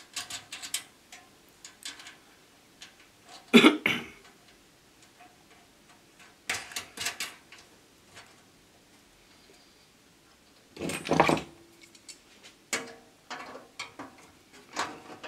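Bolt and nut being fitted by hand into a kiln door's angle-iron hinge: irregular metal clicks and clinks. A sharp knock comes about three and a half seconds in, and a longer rattle about eleven seconds in.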